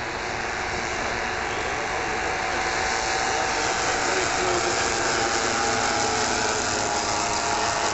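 Several model-aircraft engines on large radio-controlled scale bombers droning together in a formation flypast, growing gradually louder as they come closer.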